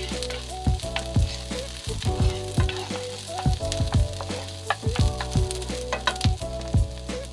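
Garlic and onion sizzling as they sauté in hot oil, with stirring in the pan. Background music with a steady beat plays over it.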